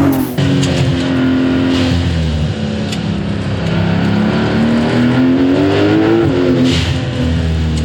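Porsche 911 Turbo S (992.2) turbocharged flat-six with a SOUL performance exhaust, pulling under acceleration, its note climbing steadily for several seconds and then dropping sharply about six seconds in at a gear change before climbing again. A short rush of noise comes right at the start.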